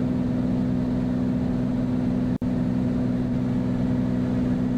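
Bonanza's six-cylinder piston engine and propeller droning steadily in flight, heard from inside the cockpit. There is a momentary dropout in the sound a little over halfway.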